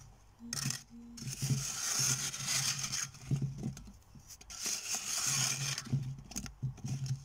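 Steel spoon scraping around a steel pan as fried badusha are turned in warm sugar syrup, in two stretches of a second or two each, with a few light clinks between.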